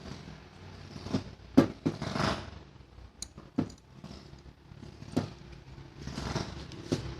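Irregular sharp clicks and knocks, about seven in all, from hand work on a car, over a low steady hum.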